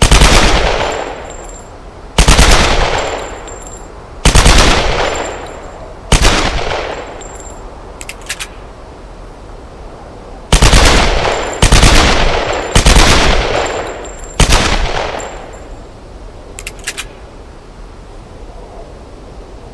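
Semi-automatic pistol firing eight single shots in two groups of four, each shot followed by a long echoing decay. A pair of faint light clicks comes between the groups and again after the last shot.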